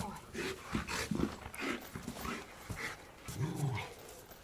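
Rottweiler panting and growling in short bursts while shaking a tyre in play, with one longer low growl about three and a half seconds in.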